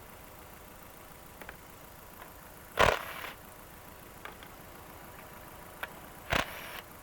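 2009 Nissan Altima engine idling steadily while misfiring, which the scan tool logs as random misfire P0300. Two loud sharp knocks of handling under the hood stand out, about three seconds in and again near the end, with a few faint clicks between.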